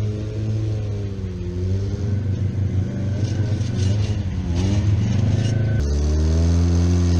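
1988 Suzuki Samurai's four-cylinder engine running on the road test of a newly installed clutch. Its pitch rises and falls as it revs and changes gear, and the engine note changes abruptly about six seconds in.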